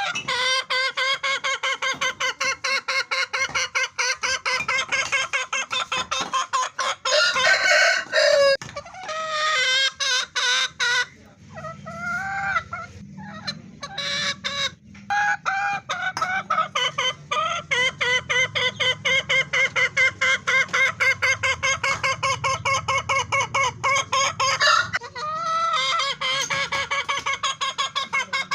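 Hen clucking: a long run of rapid, evenly repeated short notes, with a few drawn-out calls that rise and fall partway through.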